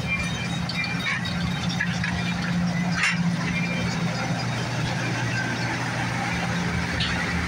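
Passenger cars of a heritage excursion train rolling slowly past at a street grade crossing: a steady low hum with a couple of brief clunks, about three seconds in and near the end.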